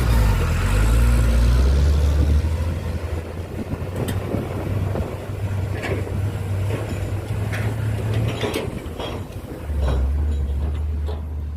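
Truck engine running with a steady low drone that drops to a lower pitch near the start and again about ten seconds in, with scattered sharp clicks and knocks between, fading near the end.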